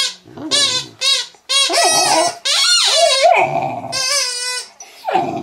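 An English Mastiff puppy and the orange squeaky toy she is mouthing, a run of about eight short, high squeaks that bend in pitch, the puppy squeaking back at the toy.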